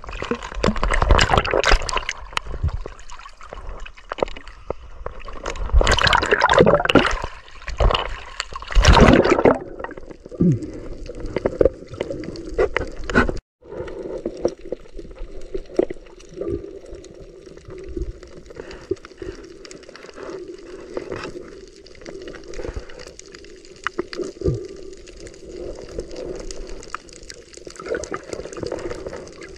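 Water heard underwater: loud bursts of bubbling and rushing water over the first ten seconds, then a steadier low hum with scattered small clicks.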